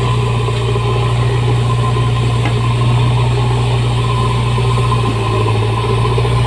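JCB machine's diesel engine running steadily with a low, even hum.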